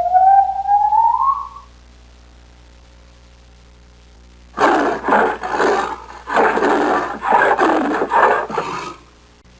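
A short rising pitched cry, then, about halfway through, a large wild animal giving a run of harsh roars for about four seconds.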